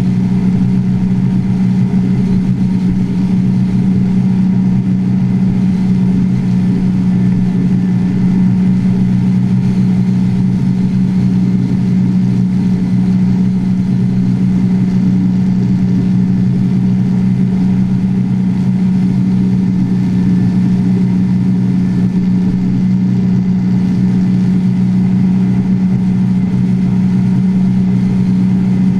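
Drag boat's engine running at a steady, even speed without revving up or down, held easy because the engine is in its break-in period.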